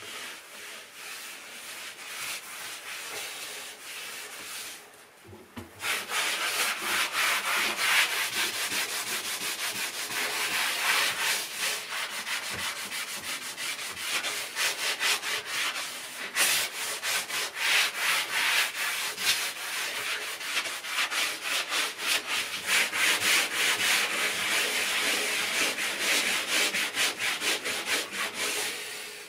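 Damp sponge scrubbing a mouldy painted ceiling in quick back-and-forth strokes, rubbing off the black mould and some of the paint. Softer for about the first five seconds, then louder and steady.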